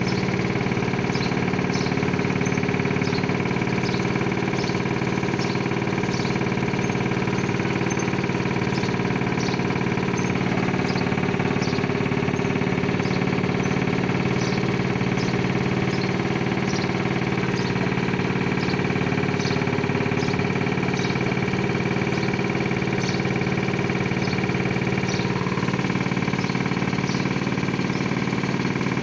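A motor or engine running steadily, an even mechanical hum with faint ticks repeating about once a second.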